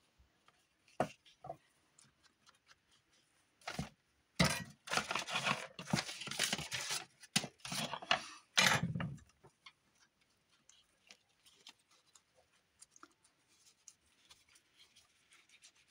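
Paper and cardboard being handled on a work table: scattered clicks, then a burst of rustling and light knocks from about four to nine seconds in, ending in a duller knock, then only faint small clicks.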